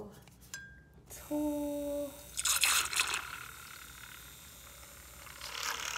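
Handheld milk frother whisking coffee and almond milk in a ceramic mug, the liquid churning and splashing, louder about two and a half seconds in and again near the end.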